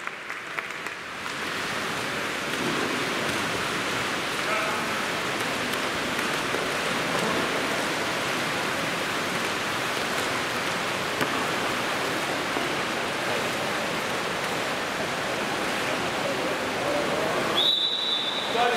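Steady splashing of water polo players swimming and churning the pool water. Near the end a referee's whistle sounds once as a steady high note for about a second.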